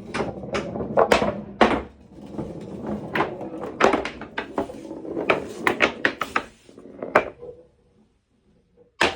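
Marbles rolling and rattling through a clear-pipe marble run, a steady rumble with many sharp clicks and clacks as they hit and drop. The rolling dies away about seven and a half seconds in, leaving near silence, and a loud sound starts suddenly at the very end.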